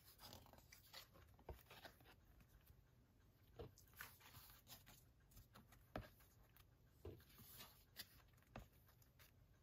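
Near silence, broken by a handful of faint clicks and soft rustles of glossy photo cards being handled and slid one behind another.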